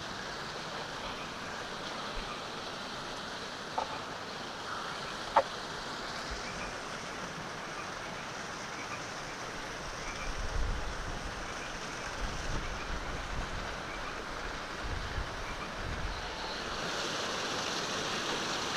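Steady rushing of river rapids, a little louder near the end, with a few low rumbles in the middle and a couple of small clicks.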